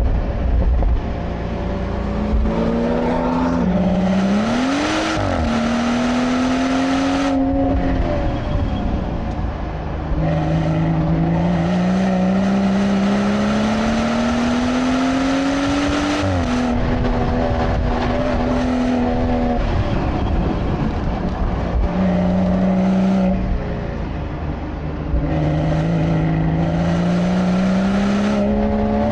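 BMW turbocharged straight-six heard from inside the cabin while lapping a track: the engine note climbs steadily in pitch through several long pulls and drops abruptly between them as the driver shifts or lifts for corners, over steady tyre and wind noise.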